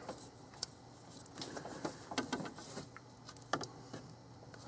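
A handful of faint clicks and scrapes as a rubber collet is twisted and tugged by hand on the hub of a new Ford water pump, stubborn to come off; the sharpest click comes about three and a half seconds in.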